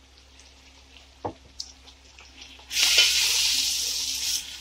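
Ground spices and fried onions being stirred in hot oil in a metal pot: a single knock about a second in, then a loud sizzle for nearly two seconds that stops shortly before the end.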